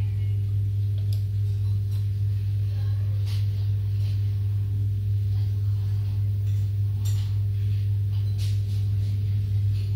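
Loud, steady low electrical hum from an opened audio amplifier, unchanging throughout, with a few faint light clicks as a screwdriver touches the chassis and boards.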